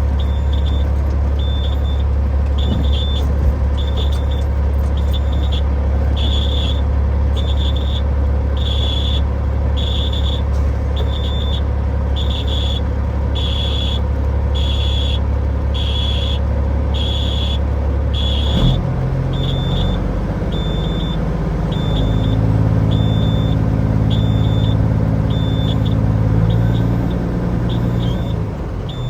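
Semi truck's diesel engine running steadily, with a high warning beep repeating about once a second as the truck backs down. About two-thirds of the way in, the engine note changes and climbs as it is given throttle, holds, then drops near the end.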